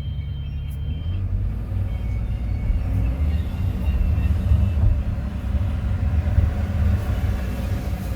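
Kobelco 320 excavator's diesel engine running with a deep, steady rumble that turns heavier and rougher about a second in.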